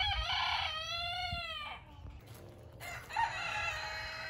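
Rooster crowing twice, each crow about two seconds long, the second starting about three seconds in.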